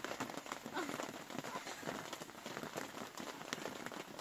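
Rain falling on a plastic tarp tent: a steady hiss full of dense, irregular small ticks from the drops hitting the sheeting.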